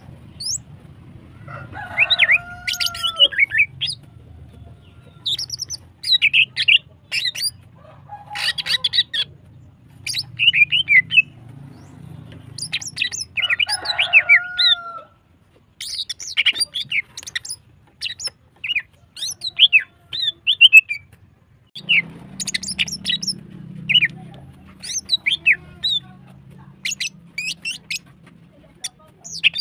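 Female greater green leafbird (cucak ijo) singing in rapid bursts of high, chirping phrases, with three lower, bending calls among them. It is a hen in breeding condition calling hard.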